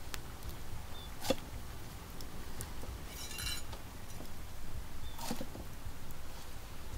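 Cleaver working a pineapple on a round wooden chopping block: a few sharp knocks, the loudest about a second in and another about five seconds in, with a brief high rasp near the middle.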